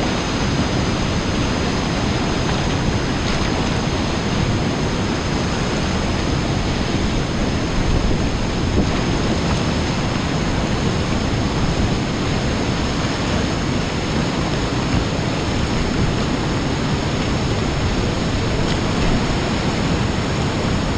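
Whitewater of a river rapid rushing steadily, a continuous even roar of churning water.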